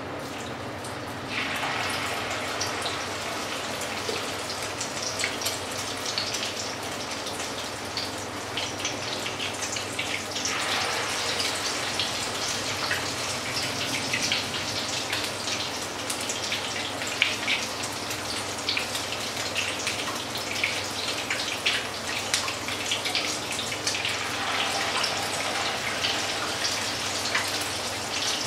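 Fritters frying in hot fat in a pan: a steady sizzling crackle that swells into a louder hiss three times, as each spoonful of fresh mixture goes into the fat.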